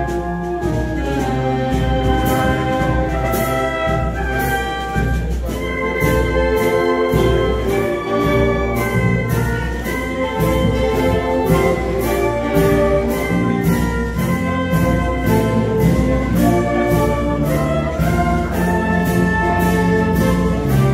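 A police concert band playing live, brass and saxophones carrying sustained melody and chords over a steady beat.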